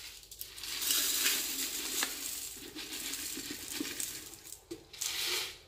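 Dry caustic soda (sodium hydroxide) being poured out into a container: a continuous dry rattle of many small grains, easing off and then a last short pour near the end.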